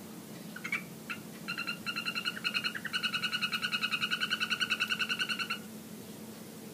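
A male golden poison frog (Phyllobates terribilis) calling: a rapid trill of clicky pulses, first in a few short broken runs, then one long unbroken trill of about two and a half seconds that stops abruptly. A steady low hum runs underneath.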